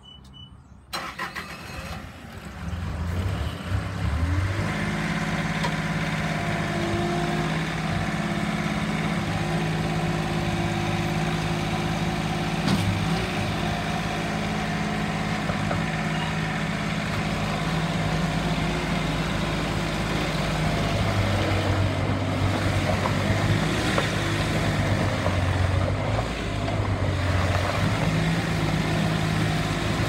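Bobcat S450 skid steer's diesel engine cranking and catching about a second in, then running steadily, its pitch shifting a little now and then as the machine drives and turns.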